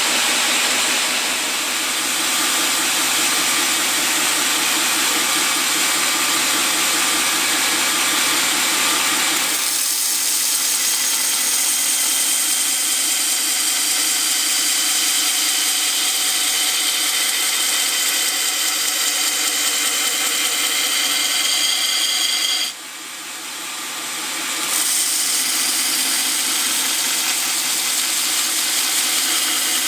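MP knife maker's belt grinder running steadily. Its sound changes about ten seconds in, and near the end it drops sharply for a moment and then climbs back up.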